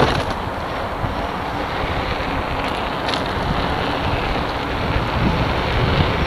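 Wind rushing and buffeting over the microphone as a Kingsong 16X electric unicycle rides along the road at speed, a dense steady rumble. There is a short sharp click at the very start.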